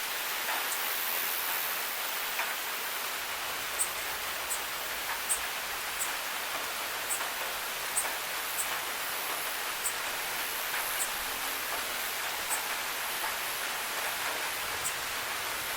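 Steady rain falling, an even hiss, with close single drops ticking sharply about once or twice a second.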